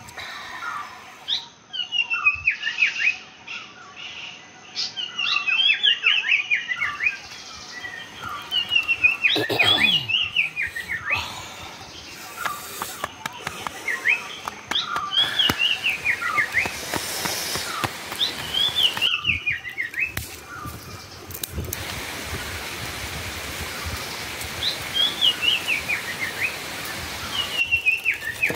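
A songbird singing repeated short phrases of quick descending chirps, one every few seconds, over a steady background hiss.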